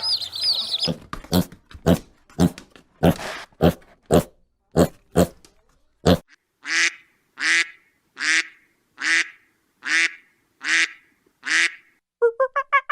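A string of animal calls: a quick run of short, sharp calls for the first several seconds, then seven evenly spaced, longer calls. A rapid chattering call starts near the end.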